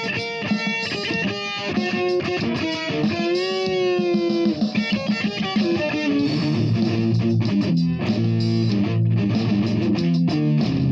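Electric guitar playing a freestyle melodic line of single notes, with a long note bent and shaken with vibrato about three seconds in, moving to lower notes in the second half.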